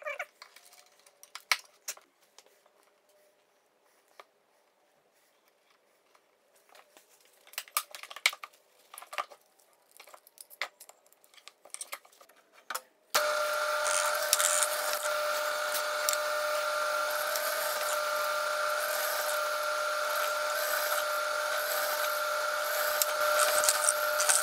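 Scattered light knocks and clicks of workshop handling, then about halfway through a woodworking power tool starts and runs steadily with a high whine until it stops at the end.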